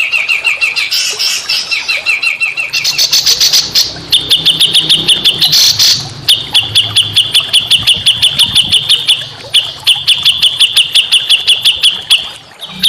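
A small songbird singing a fast, evenly repeated string of sharp chirps, about seven a second. The trill jumps higher about four seconds in and breaks off briefly a few times.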